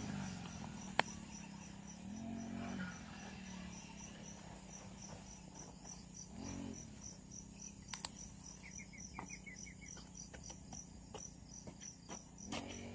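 Insect chirping steadily in the field, short high chirps at about three a second, with a brief faster trill near the middle. A few sharp clicks cut in, the loudest about a second in, among soft rustling of hands working the soil.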